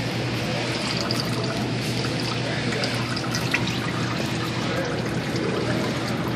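Used diesel engine oil pouring in a steady stream into a drain pan during an oil change.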